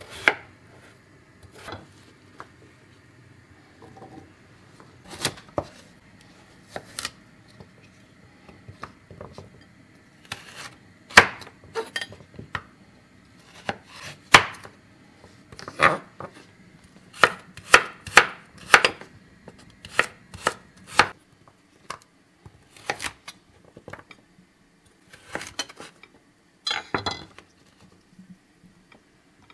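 Kitchen knife cutting raw potato and carrots on a wooden cutting board: irregular sharp knocks of the blade striking the board, with a quick run of cuts around the middle.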